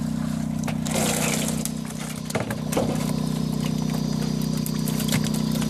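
An engine idling steadily with a low, even hum, with a few sharp knocks from live carp and a landing net being handled over a plastic crate.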